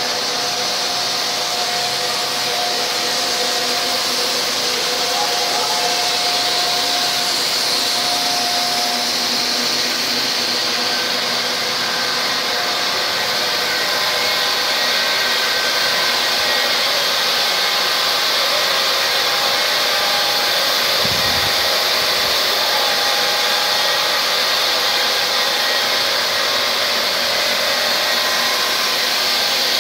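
Knitting machines running steadily in a knitting mill: an even, loud whirring hiss with faint steady whines over it.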